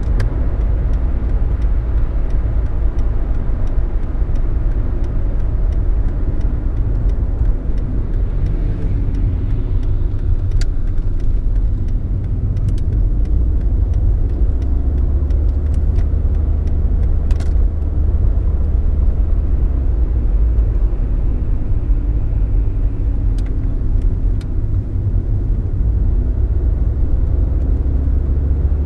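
A 1991 Mercedes-Benz 190D 2.5 Turbo's OM602 five-cylinder turbodiesel pulling the car along, heard from inside the cabin over a steady low road rumble. The engine note rises and falls a few times as the revs change.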